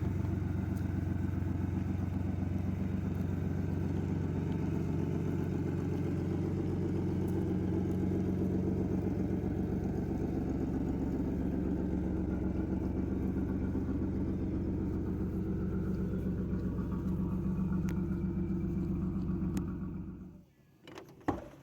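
1991 Camaro's 3.1-litre V6 idling steadily, now running after two bad fuel injectors were found to be the cause of its no-start. The engine sound dies away about twenty seconds in.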